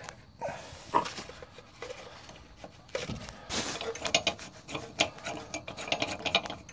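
Light metal clinks, scrapes and rattles of hardware being handled at a truck's cab body-mount bolt. There are a few scattered knocks at first, then a denser run of rapid clinking from about four seconds in, as a socket is worked onto the bolt.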